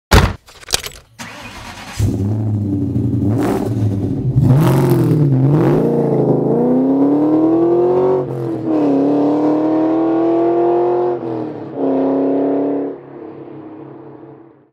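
2003 Mustang Cobra's supercharged 4.6-litre V8 running through a catless BBK off-road X-pipe, opening with a few sharp bursts and then revving, its pitch climbing in two long pulls with brief breaks between before it settles and fades out. The exhaust note is louder and more aggressive with the clogged stock cats removed.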